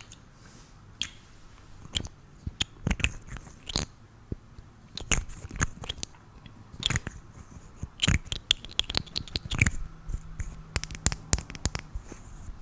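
Close-up handling of makeup packaging: irregular crisp clicks, taps and crunching, sparse at first and coming in quick clusters in the second half.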